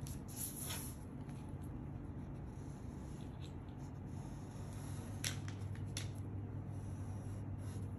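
A plastic ruler and hands sliding and scratching on pattern paper in short strokes, over a steady low hum.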